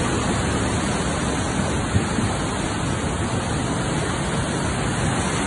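Flooded river in spate rushing past, a steady loud rush of churning brown floodwater.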